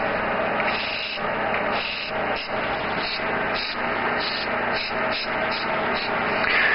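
Small air compressor's motor running steadily, with an airbrush hissing on top in short, repeated spray strokes.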